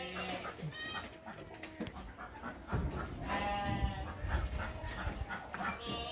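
Goats bleating: a few short calls, then a longer bleat about three seconds in and another near the end.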